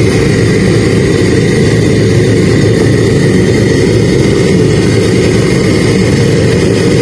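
Home theatre speaker putting out a loud, steady rumbling roar with a thin high whistle tone held above it.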